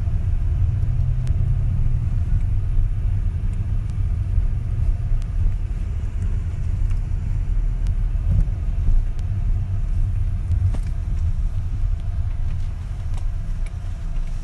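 Steady low rumble of a car driving slowly along a street, heard from inside the cabin.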